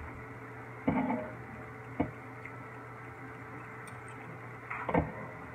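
A knife slicing through seared steak and striking a cutting board, giving a few short knocks about a second apart and a third near the end, over a steady low hum.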